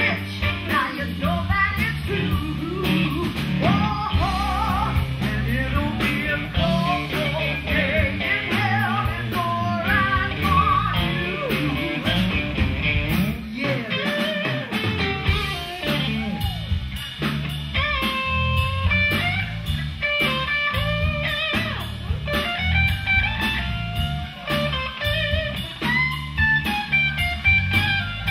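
Live blues-rock band playing, with electric guitar lines over bass and drums.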